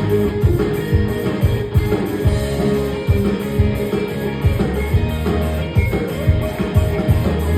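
A band playing live: plucked strings over a steady drum beat.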